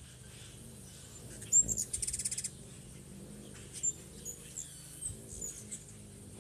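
Hummingbirds calling while they chase each other off a feeder. A sharp, high squeaky note comes about a second and a half in, followed at once by a fast buzzy chatter, then several short, high chips scattered through the rest.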